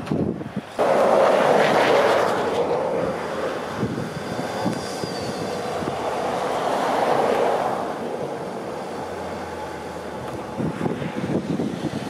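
BMW X5 SUV driving into hard-packed plowed snow, its engine and tyres straining, in a sudden loud surge about a second in and a second swell in the middle. Wind buffets the microphone throughout.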